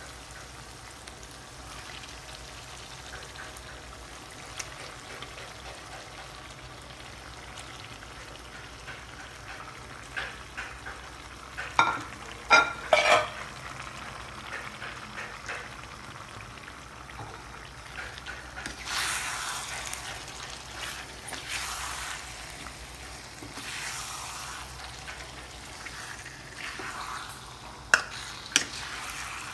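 Spice paste frying in a wok, with a metal spatula scraping and tapping the pan as it is stirred. A couple of sharp knocks come about twelve seconds in, and the sizzle swells louder in stretches as raw chicken pieces are stirred into the paste.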